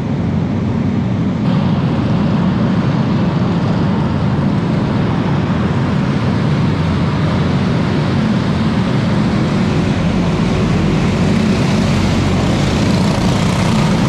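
Several box stock racing kart engines running together on the dirt oval, a loud steady drone.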